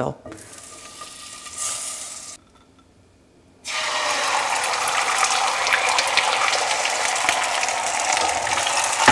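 Beaten eggs poured into hot butter in a pre-seasoned Lodge cast iron skillet, frying with a steady dense sizzle and crackle. The sizzle starts suddenly a little over halfway through, after a fainter stretch and a brief near-silent gap.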